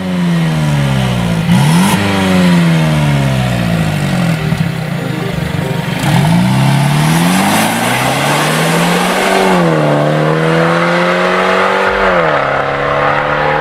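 Mercedes-Benz W205 C43/C400/C450 twin-turbo V6 through an Armytrix cat-back Valvetronic exhaust, revving hard: the pitch climbs and falls several times, then climbs twice more, each climb ending in a sharp drop, about nine and twelve seconds in.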